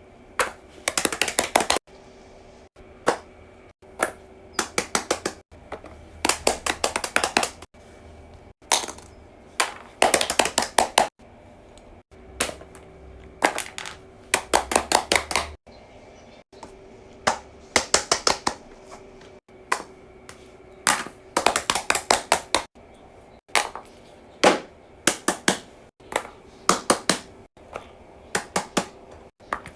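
Fidget toys being clicked and tapped: quick runs of sharp clicks in bursts of a few to a dozen, one after another, over a faint steady hum.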